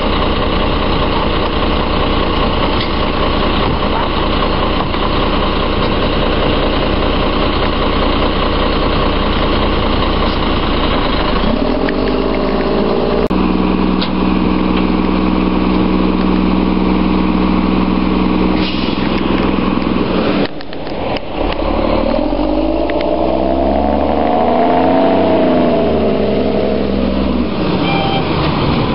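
Diesel engine of a Volvo WXLL front-load garbage truck running, first idling with a steady high whine, then held at a steady higher speed for several seconds. Past the middle it dips briefly, then rises and falls in pitch as the truck drives off.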